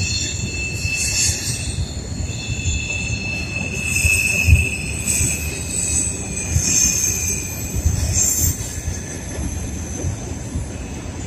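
Freight train of covered hopper cars rolling across a steel girder trestle, wheels squealing in high, wavering tones over a continuous low rumble. Occasional low thumps come through the rumble.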